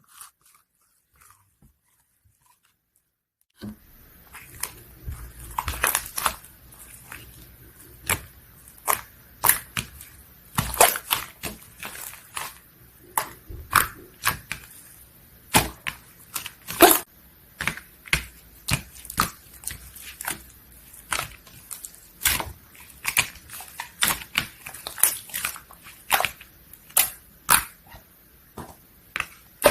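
A two-layer cheese slime being pressed and stretched by hand, with many irregular sharp pops and crackles of trapped air. It starts about three and a half seconds in, after near silence.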